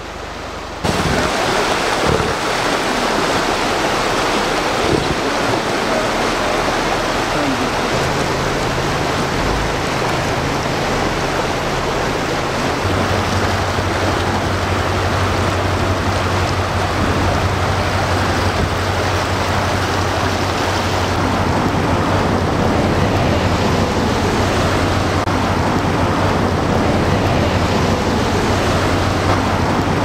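Steady rushing of a fast-flowing river, stepping up in level about a second in, with a low steady hum joining about halfway through.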